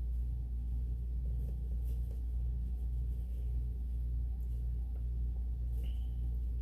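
Steady low electrical or mechanical hum with a faint regular pulse in it, and a few faint clicks.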